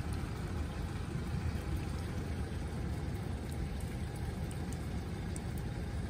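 Wind buffeting the phone's microphone in a steady, fluttering rumble, over the noise of heavy surf breaking on the beach.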